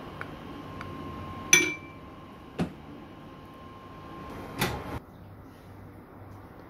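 A drinking glass knocking against a plate and hard surface three times, the first and loudest knock with a short glassy ring, with a couple of light ticks before it.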